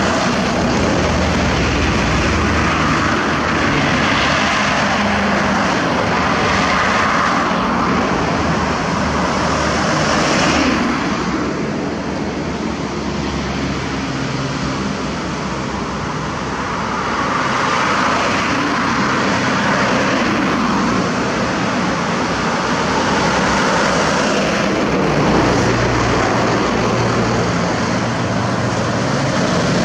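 Road traffic: a heavy diesel truck and motorbikes driving past, with a steady engine drone and tyre noise that eases off briefly near the middle.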